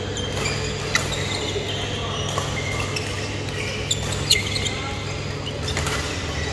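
Badminton rally in a large echoing sports hall: sharp cracks of rackets striking the shuttlecock every second or few, the loudest about four seconds in, with short shoe squeaks on the court floor over a steady low hum.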